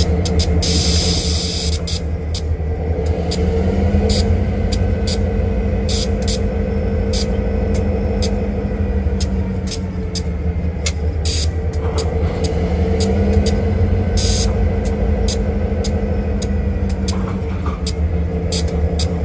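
Diesel-electric freight locomotive's engine running under load during switching, a low steady rumble whose pitch rises as the throttle is opened about three seconds in, drops back, then rises and drops once more near the end.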